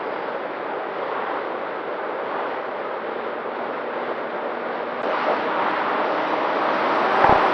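Steady rush of air with a faint hum from an FPV flying wing in flight, growing louder about five seconds in. A brief low knock near the end.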